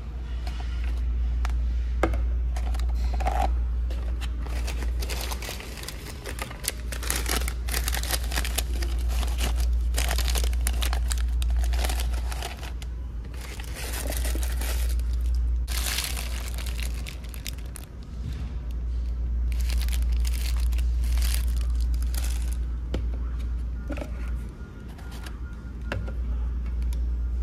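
Paper food packaging crinkling and rustling, with clicks and scrapes as plastic jack-o'-lantern pail lids are opened and handled, over a steady low rumble.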